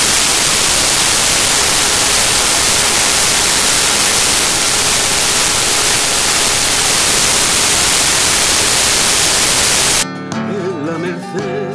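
Loud, even static hiss from a corrupted recording, cutting off suddenly near the end as flamenco singing with guitar comes back.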